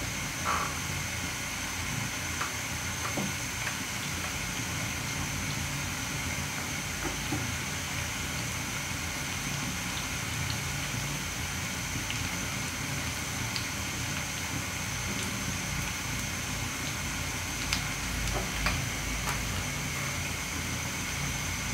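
Oil sizzling steadily as palm-fruit puli pitha deep-fry in a pan, over a low steady rumble and a faint steady high whine. A few light clicks of a slotted spoon at the pan come near the start and again late on.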